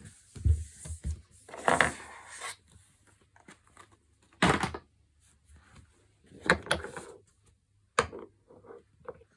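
Small nail polish bottles and their cardboard boxes being handled and put into a plastic basket on a wooden floor: scattered knocks, scrapes and rustles, with a sharp click about eight seconds in.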